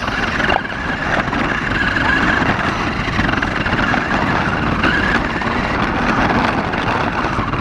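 Small electric motor of a Carrera Mario Kart remote-control car whining steadily as the car drives, with gear and wheel noise.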